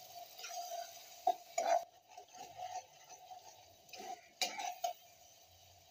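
A metal spoon stirs and scrapes ground onion frying in oil in a steel kadai, knocking against the pan a few times. The onion is being browned to golden.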